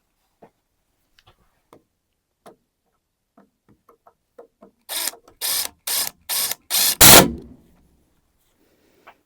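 Hand sawing a wooden board: about six quick, rasping strokes a little under half a second apart, growing louder, with the last stroke the loudest. Before them come a few light clicks and knocks from handling the wood.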